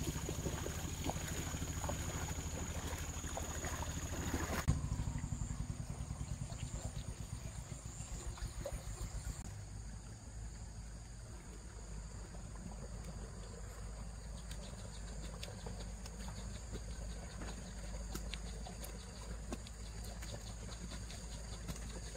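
An engine running with a rapid, even pulse, dying away about ten seconds in and leaving a steady low rumble; a high thin steady whine sounds over the first few seconds.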